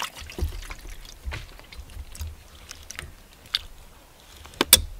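Wet food being poured from a pouch into a metal camp pot, a soft irregular sloshing and squishing, with a couple of sharp metal clinks near the end.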